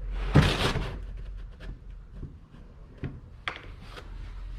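A rubber coolant hose being pushed back onto a radiator fitting: a loud scuffing, rubbing noise about half a second in, then a few light clicks and taps of hands and metal.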